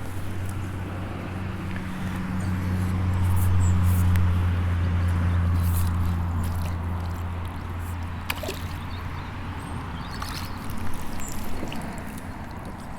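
Water sloshing and trickling as a small barbel is released back into the water. Under it runs a low steady engine hum that swells about two seconds in and fades away by about eight seconds in.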